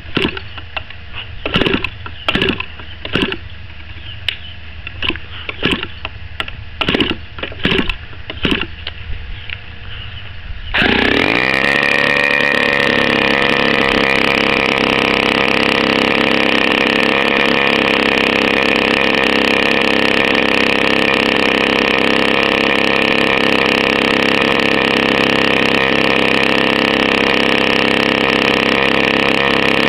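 Brand-new RCGF 15cc single-cylinder two-stroke petrol model aircraft engine being flipped over by its propeller, about a dozen short sharp bursts, then catching about eleven seconds in and running steadily at high speed.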